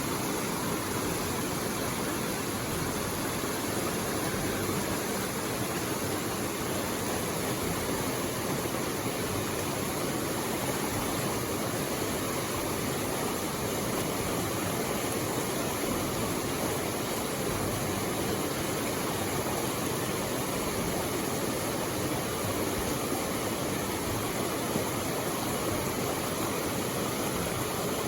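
Steady rush of a waterfall and white water close by, an even roar with no breaks.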